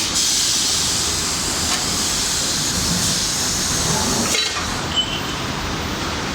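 Noise of an induction-heating and forging line, with steady machine noise and a hiss that starts with a click and stops about four seconds later with another click, then a short metallic clink.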